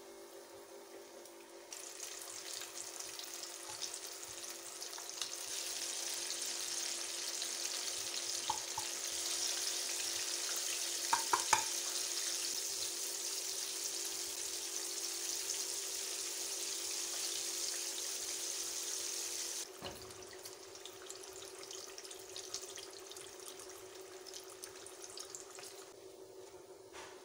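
Chicken wings deep-frying in hot oil in a pan, a steady sizzling hiss that sets in about two seconds in and grows louder over the next few seconds. A few light clicks come near the middle. The sizzle drops suddenly to a quieter level about two-thirds of the way through, over a faint steady hum.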